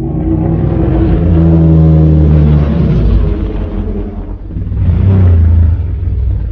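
Deep, rumbling monster roar sound effect for Godzilla. It starts suddenly out of silence, swells twice, and begins to fade near the end.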